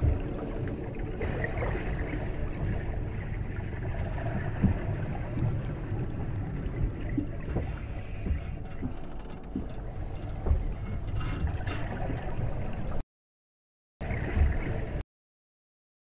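Saltwater aquarium water circulating and gurgling, with a faint steady pump hum and small soft knocks. The sound cuts out suddenly near the end, comes back for about a second, then stops.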